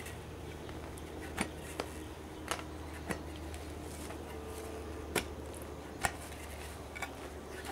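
Sharp metal-on-metal clanks from a hand-worked under-sidewalk boring tool as it is driven into the ground, seven strikes at uneven intervals, over a steady low hum.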